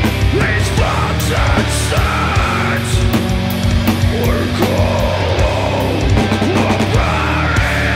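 Doom metal band playing live: heavy guitars and bass over drums and crashing cymbals, with a vocalist singing over the riff.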